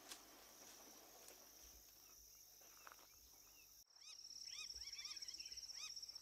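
Near silence for the first few seconds, then about four seconds in a steady, high, pulsing insect trill starts, with repeated short rising-and-falling bird chirps over it.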